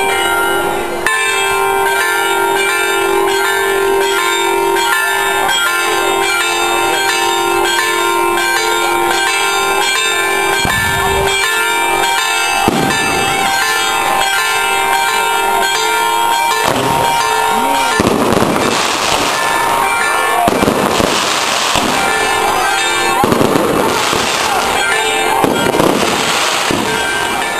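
Ringing, bell-like tones repeat at a steady pitch through the first part. About two-thirds of the way in, fireworks go off in about five loud crackling bursts.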